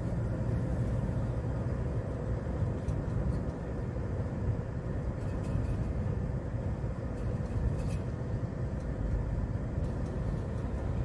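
Steady in-cab engine and road noise of a Hyundai Porter II truck cruising at about 70 km/h.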